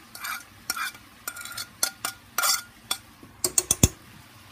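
A utensil scraping and stirring in a pan of sautéed vegetables as cooked spaghetti squash is added, in short repeated strokes. A quick run of sharp clicks from the utensil against the pan comes near the end and is the loudest part.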